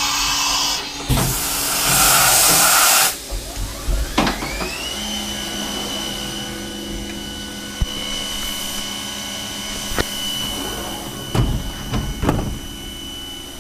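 CNC vertical milling machine: a loud hissing burst of about two seconds near the start, then the spindle spins up with a rising whine about four seconds in and runs at a steady high whine over a low hum, with a few light clicks.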